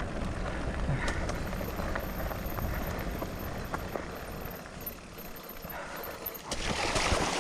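Electric mountain bike rolling over rough trail, with tyre noise, scattered knocks and rattles, and wind rumbling on the microphone. About a second before the end, a louder rushing noise comes in.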